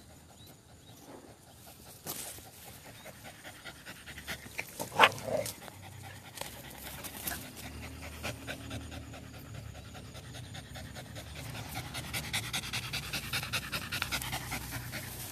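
A dog panting rapidly, close by, growing louder near the end. A single short sharp cry about five seconds in.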